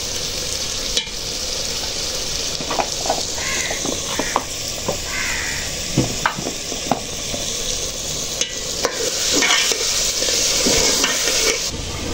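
Potato-and-chicken curry sizzling in a steel pot over a wood fire in a clay chulha, a steady hiss with scattered clinks and knocks of steel utensils and plates.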